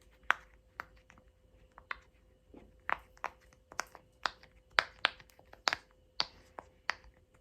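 Top Trends silicone pop-it fidget toy having its bubbles pushed through one by one: a steady run of sharp pops, about two a second.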